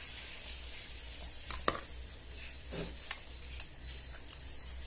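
Eating sounds: a metal spoon clicking a few times against a plate, with a softer mouth noise about midway, over a steady low hum.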